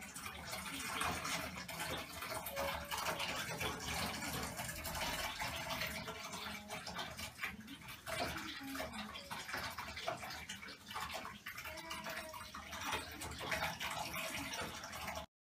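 Bathtub filling with hot water: a steady rush of running water into the tub, stopping abruptly near the end.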